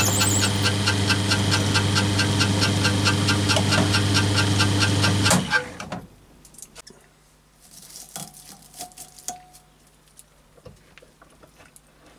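Small bench drill running as it drills into a white plastic block held in a machine vice, a steady motor hum with a regular ticking. About five seconds in the motor is switched off and stops quickly. Faint clicks and rustles follow.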